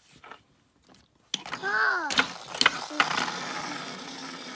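Motorised toy airplane switched on and spinning on a tabletop: after a second of quiet it starts suddenly, with a short rising-and-falling pitched sound and a few sharp clicks, then settles into a steady whir and rattle of its motor and wheels.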